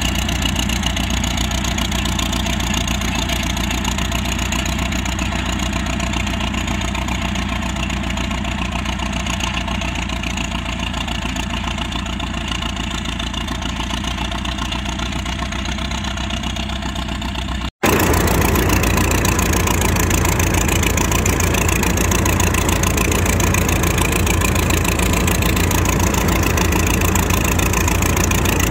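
Antique tractor engine running steadily under plowing work. Near the two-thirds mark the sound breaks off for an instant and comes back slightly louder.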